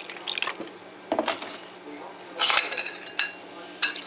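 Metal utensils clinking and scraping against a stainless steel bowl of chopped fruit as it is stirred, in several short clatters.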